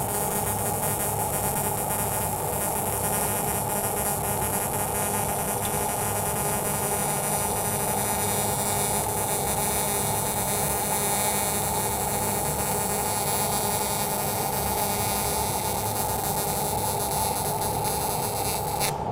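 AC stick-welding arc burning a 3/32 309L-16 rod on 16-gauge stainless steel, the Everlast 200DV set to 75 amps and 180 Hz AC: a steady buzz with a hissing edge. It cuts off suddenly near the end as the arc is broken at the end of the weld.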